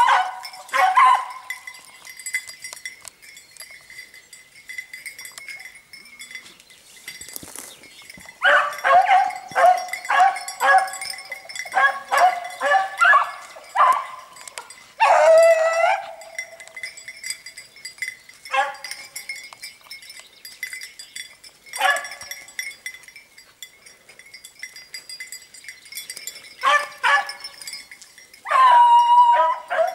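Beagles baying on a hare's scent: bursts of high yelping cries with pauses between, the first several seconds quieter, then repeated runs of baying.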